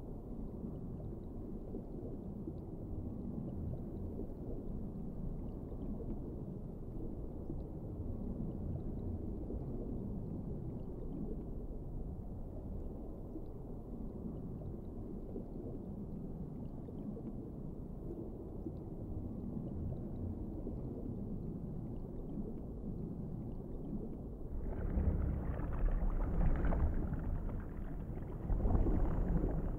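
Underwater ambience: a steady, low, muffled rushing wash of water. About 25 seconds in it grows louder and brighter, swelling twice.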